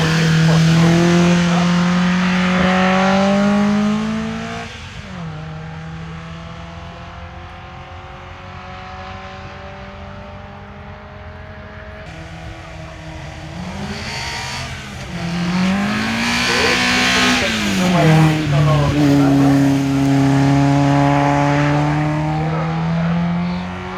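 Hillclimb competition car engines at full throttle. First one car accelerates hard with its engine note climbing, then fades away. About halfway through, a car revs up and down a few times, then sets off with a loud, steadily rising engine note that drops away just before the end.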